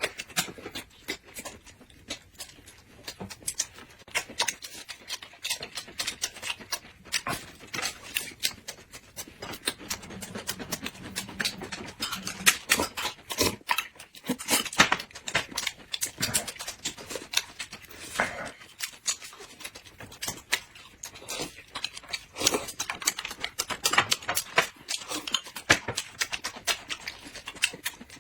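Close-miked eating sounds: people chewing and biting food, with a steady stream of sharp, crackly clicks and smacks.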